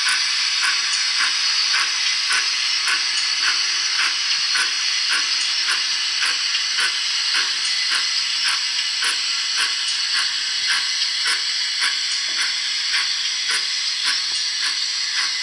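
Recorded GWR 28xx steam-locomotive sound played by a Zimo DCC sound decoder through a small speaker in the tender of a Hornby 00 gauge model: a steady steam hiss with soft, regular beats about twice a second, the model running slowly.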